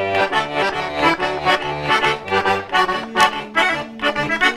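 Small diatonic accordion (organetto) playing a lively folk tune: quick melody notes over a steady, alternating bass accompaniment, the introduction to a song.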